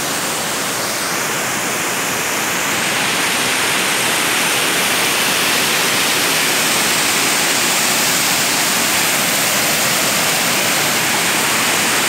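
A small waterfall's water rushing steadily over rock ledges, a loud even noise that grows a little louder about three seconds in.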